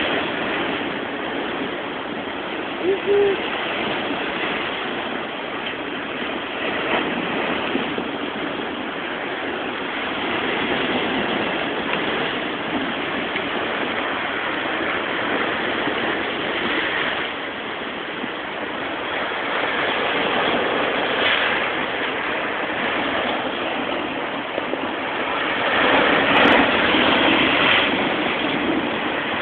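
Heavy storm surf driven by the jugo wind, waves crashing and rushing over a rocky shore in a continuous roar that swells and ebbs with each set, loudest near the end.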